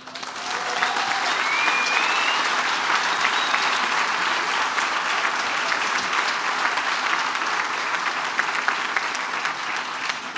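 A crowd applauding: many hands clapping in a dense, steady patter that swells within the first half second and thins a little near the end.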